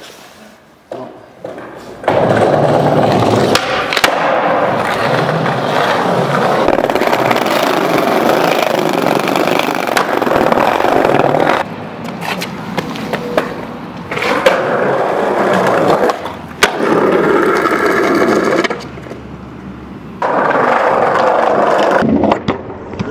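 Skateboard wheels rolling over pavement in several long stretches, broken up by a few sharp clacks of the board.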